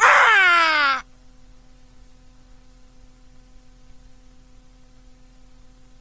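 A performer's voiced, bird-like screech for an angry diving call, gliding steeply downward in pitch and cutting off about a second in. A steady electrical hum follows.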